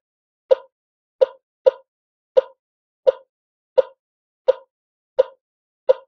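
Heart monitor (ECG) sound effect: short blips at a steady pulse of about one every 0.7 seconds, with one beat coming early about a second and a half in.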